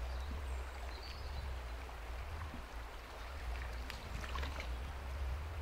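River water running steadily, with a deep low rumble underneath.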